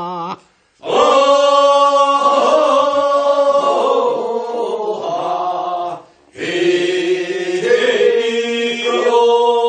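A group of singers answers with the refrain of a Korean rice-paddy weeding work song (non maeneun sori), in two long held phrases with a short break about six seconds in; the lead singer's solo line ends with a wavering vibrato just before.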